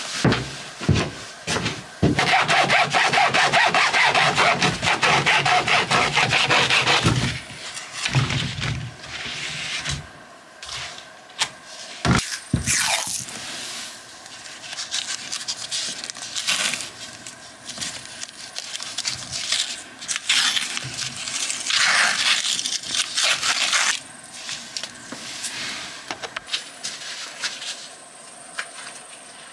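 Scraping and rubbing of materials being handled: one long scrape lasting about five seconds, starting a couple of seconds in, then scattered knocks and clicks with one sharp knock near the middle, and a second, shorter scrape later on.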